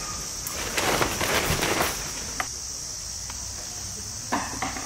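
Insects chirring in a steady, high-pitched drone, with a burst of rustling near the start and a few light knocks later on.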